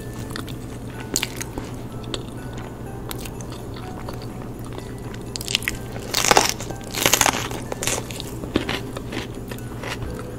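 Close-up eating sounds: chewing and crunching bites of food, with the loudest crunches bunched together around six to seven seconds in, over a steady low hum.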